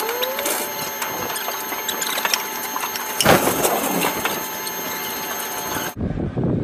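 Steady machine whine and hum from helicopter-loading gear and a cable winch in an aircraft cargo hold, with scattered clanks and a louder rattle about three seconds in. Near the end the sound cuts abruptly to a low rumble.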